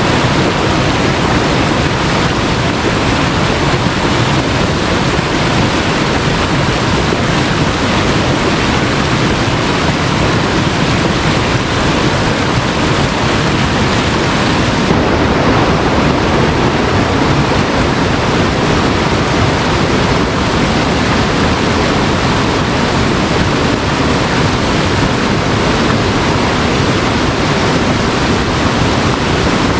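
Waterfall in flood: a steady, loud rush of heavy water. The tone shifts slightly about fifteen seconds in.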